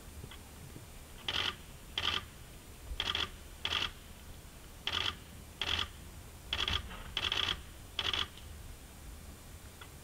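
Nine short mechanical buzzes, roughly in pairs, over about seven seconds. The uploader takes this for the camera's own noise, probably from the Canon, picked up over the quiet forest background.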